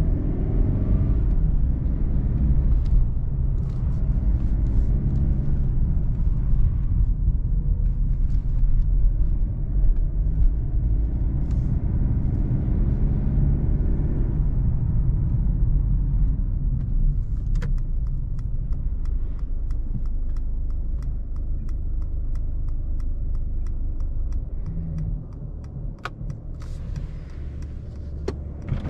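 Mercedes-Benz E220d cabriolet driving with the roof down: its four-cylinder turbodiesel pulls up through the revs in the first few seconds, then the car cruises steadily under a heavy rumble of road and wind noise. Just past halfway a regular light ticking comes in, about three times a second, and the sound eases off a little near the end.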